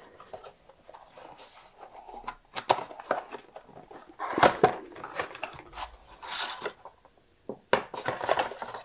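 A small cardboard box being handled and opened, its inner tray sliding out of the sleeve: irregular scraping and rubbing of cardboard with light knocks and taps.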